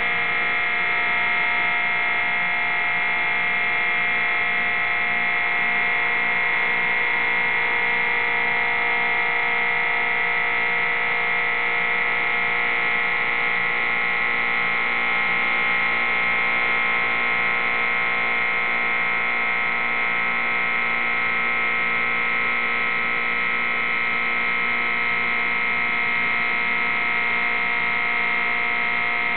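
Greenlee 960 SAPS electric hydraulic pump running steadily under load, a continuous motor whine at an even pitch, as it drives the Greenlee 884 bender's ram through a bend in 3-inch rigid conduit.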